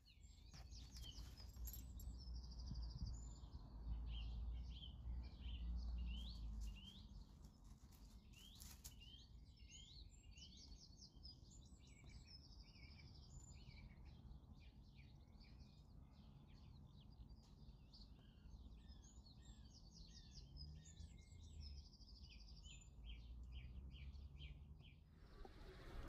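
Small songbirds singing and chirping faintly, several quick trills and short repeated notes overlapping, over a low background rumble.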